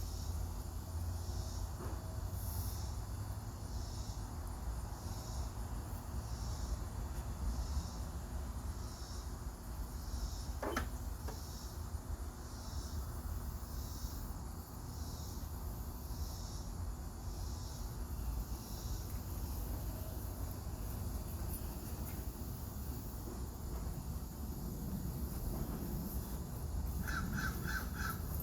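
A bird calling over and over outdoors, about once a second, stopping about two-thirds of the way in, over a steady low rumble.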